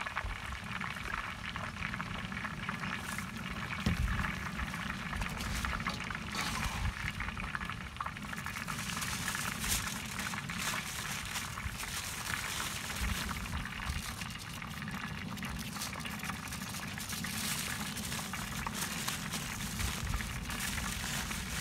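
Aluminium foil crinkling and crackling as it is folded over and pressed down by hand into a packet, the crackle busier from about a third of the way in.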